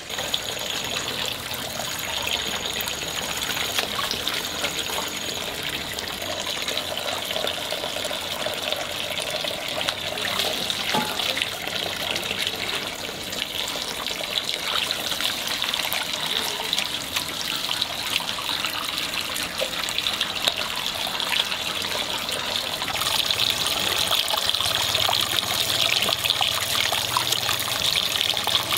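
Running water trickling steadily, a little louder in the last few seconds.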